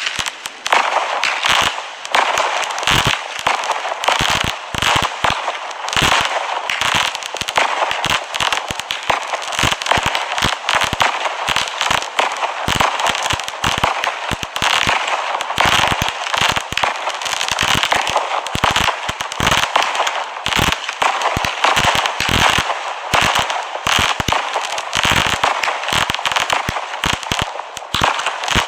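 Zero Hour vertical firework cake firing shot after shot: a dense, irregular string of launch thumps and bursts over a constant crackle from the crackling stars.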